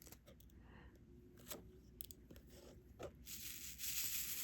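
A few faint clicks, then from about three seconds in a steady rattle of loose resin diamond-painting drills being shaken in their tray.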